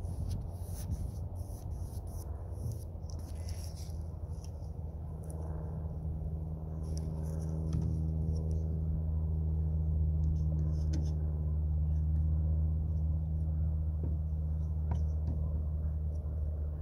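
A low, steady motor hum with several pitches that grows louder about halfway through and eases off near the end. Faint light scratches and clicks come in the first few seconds.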